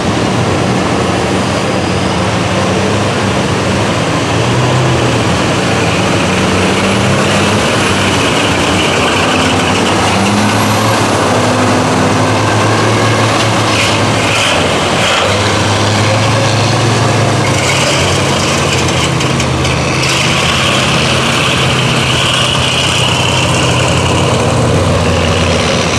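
Big engines of lifted monster mud trucks running loud and revving as they drive through a mud pit, their pitch rising and falling.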